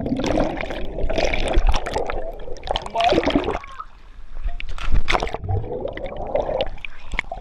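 Pool water churning and bubbling around a waterproof GoPro as it dips under the surface and back up, with a couple of sharp splashes from people jumping into the pool.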